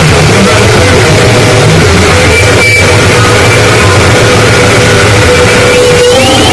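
Harsh noise music: a loud, unbroken wall of distorted noise filling every register, with thin held tones running through it and a heavy low drone under the first part.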